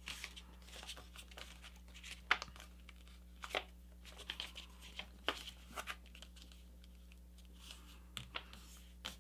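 A sheet of paper rustling and crinkling faintly as a paper airplane's wing is folded down and creased by hand, with scattered sharp crackles as the crease is pressed.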